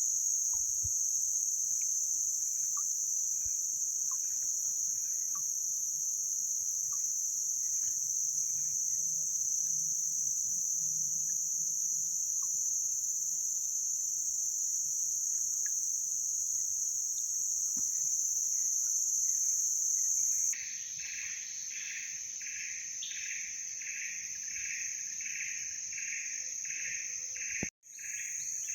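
Steady high-pitched drone of a tropical forest insect chorus, with a few faint bird chirps. About twenty seconds in, it switches abruptly to a different insect chorus with a pulsing call repeating about twice a second.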